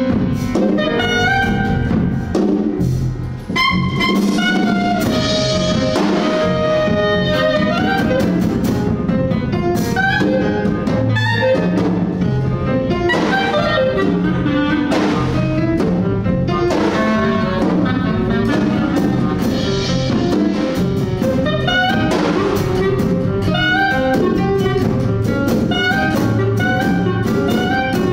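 Live jazz quartet playing: clarinet leading with quick runs of notes over piano, double bass and drum kit.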